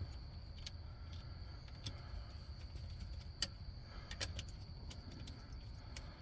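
Faint, irregular small metallic clicks from band clamps being tightened by hand on a pipe, over a low steady rumble.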